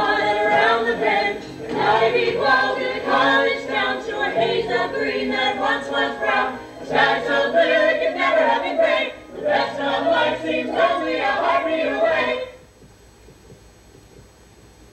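Ensemble of voices singing a musical-theatre number together, stopping abruptly about twelve and a half seconds in, after which only faint room noise remains.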